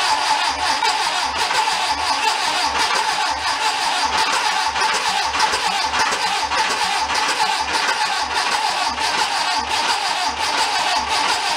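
Air-cooled VW Beetle flat-four engine running steadily, its exhaust coming straight out of open J-tubes with no muffler.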